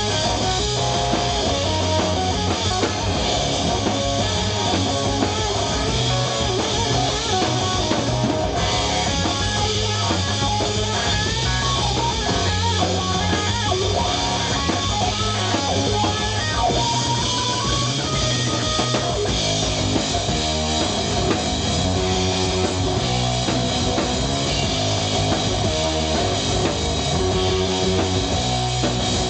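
Rock band playing live and loud: distorted electric guitar over bass guitar and a drum kit, in a steady driving groove.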